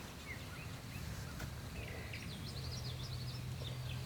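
Small birds chirping, with scattered high calls and a quick run of chirps about two and a half seconds in. A steady low hum comes in about halfway through.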